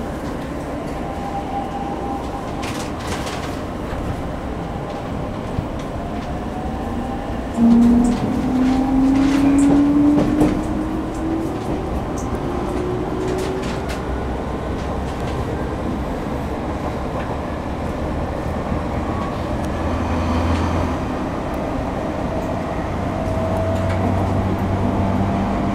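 Cabin running sound of a Sotetsu 10000 series electric train: steady wheel-and-rail rumble, with the whine of its Mitsubishi IGBT-VVVF inverter and traction motors rising in pitch from about eight seconds in as the train powers up and accelerates. A fainter rising whine returns near the end.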